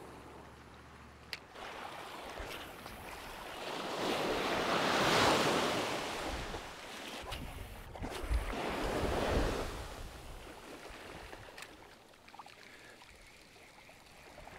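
Small waves breaking and washing up a sandy beach, swelling twice: loudest about five seconds in and again near nine seconds.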